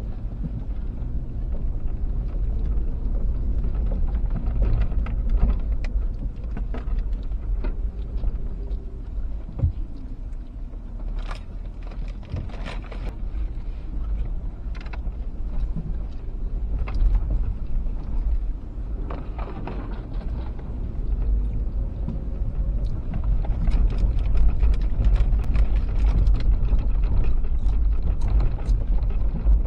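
V6 Toyota Land Cruiser Prado 120 driving a rough dirt 4WD track: a steady low rumble with scattered knocks and rattles, growing louder over the last third.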